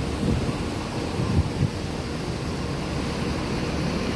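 Low, steady rumble of buses idling in a bus terminal, mixed with wind buffeting the microphone, with a couple of faint knocks about a second and a half in.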